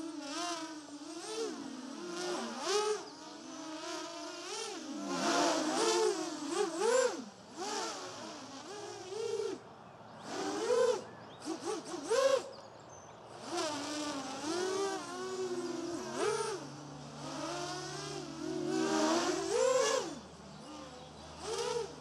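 Racing quadcopter motors and propellers whining in flight, the pitch rising and falling over and over with the throttle. Under it is a drone that the pilot cannot place; he asks whether a screw has not been tightened yet.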